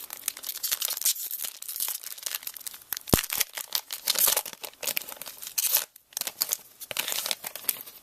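A baseball trading card pack wrapper being torn open and crinkled by hand: dense crackling and rustling, with one sharp snap about three seconds in and a brief pause near six seconds.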